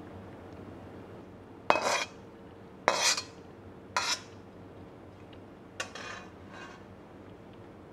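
Metal spatula scraping against a wok as the stir fry is pushed out onto the plate: four short scrapes about a second apart, the last one fainter.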